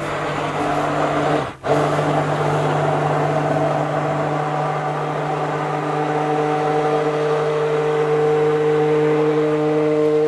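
Electric blender running steadily in a pot of goose-fat soap batter, a steady motor hum that stops for a moment about a second and a half in and then starts again. It is blending the fat with the lye-and-milk solution to emulsify it into a creamy soap batter.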